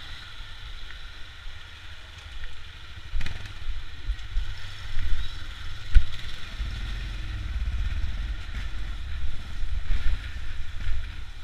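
Motorcycle engines running as a group of motorcycles pulls away and rides along a street, heard from a bike carrying the camera; the low rumble grows louder about three seconds in, with a sharp knock around six seconds.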